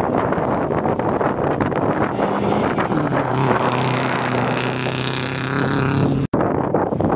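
Subaru Impreza rally car's flat-four engine under hard throttle on loose gravel, with stones and dirt crackling and wind on the microphone. The engine note comes through clearly and holds steady from about halfway through, then the sound cuts out for an instant about six seconds in.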